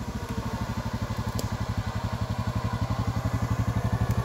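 ATV (quad bike) engine running at low revs with a fast, even low pulse, growing steadily louder as the quad crawls closer.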